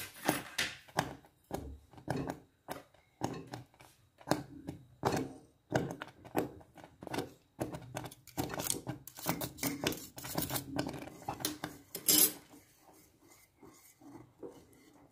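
Wire whisk scraping and clinking against a metal saucepan in quick, uneven strokes as it stirs a thickening cream, with one louder clack near the end.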